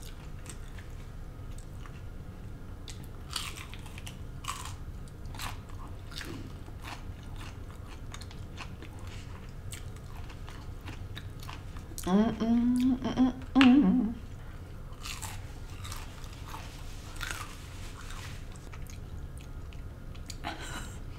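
Close-miked chewing of crunchy fried food, with scattered sharp crunches and crackles as it is bitten and chewed. A short stretch of voice breaks in about twelve seconds in.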